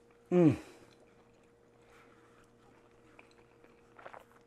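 A man's short "mmm" of enjoyment, falling in pitch, with his mouth full, followed by faint chewing as he eats a cheesy baked chicken slider.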